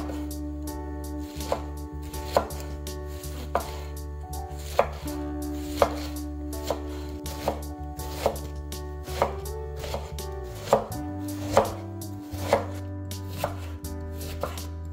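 Chef's knife slicing through a head of white cabbage on a wooden cutting board, shredding it thinly: crisp cuts, roughly one to two a second and unevenly spaced, each ending in a knock of the blade on the board.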